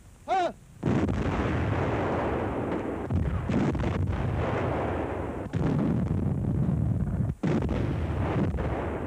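Battle soundtrack of artillery and gunfire: a dense, continuous rumble of firing and explosions, briefly broken twice. A short whistling tone comes just before it near the start.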